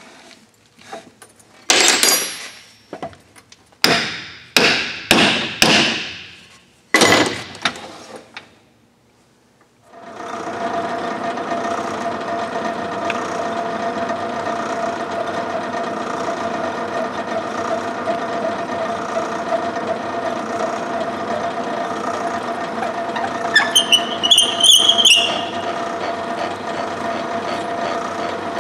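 A series of sharp metal knocks with ringing, then, after a short pause, a metal lathe starts and runs steadily with a hum and a high held whine, spinning a cement mixer's drive gear and bearing housing in a four-jaw chuck. Near the end a brief high squeal sounds over the running lathe.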